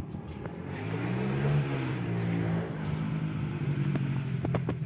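A motor engine running at a steady pitch, growing louder about a second in and then holding.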